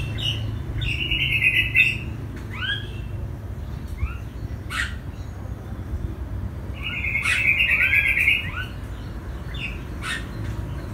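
Songbirds calling: short, arching chirps and two buzzy trills of about a second each, one near the start and one about seven seconds in, over a steady low rumble.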